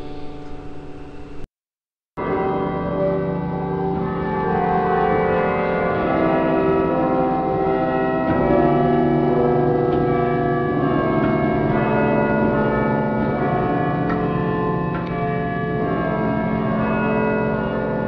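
Keyboard music, organ-like held chords with many sustained notes. It cuts to silence for under a second about one and a half seconds in, then a new passage of held chords starts.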